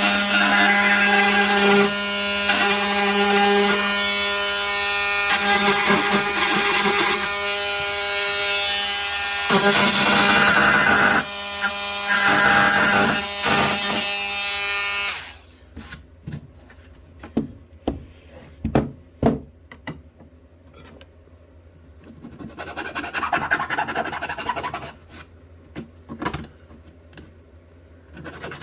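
Milwaukee M18 oscillating multi-tool running and cutting thick plastic, a steady buzz that rises and eases as the blade bites. It stops about fifteen seconds in, followed by scattered clicks and knocks of handling and a few seconds of rubbing.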